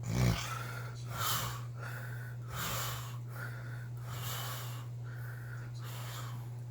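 A man snoring in his sleep: a low snort just after the start, then a quick run of raspy breaths in and out, over a steady low hum.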